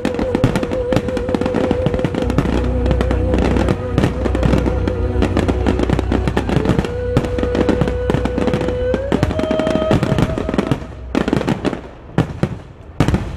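Fireworks barrage bursting in rapid, overlapping bangs and crackle, over music holding one long wavering note that steps up in pitch about nine seconds in and stops soon after. The bursts then thin out, with a few sharp bangs near the end.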